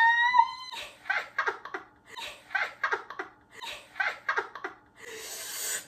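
A voice sliding up in pitch, then a long run of short laughs, several a second. It ends in a breathy hiss near the end.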